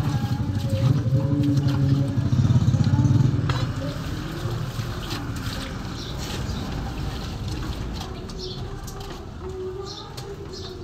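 A motor vehicle engine running close by, loudest for the first three or four seconds and then fading away. A single clank is heard about three and a half seconds in.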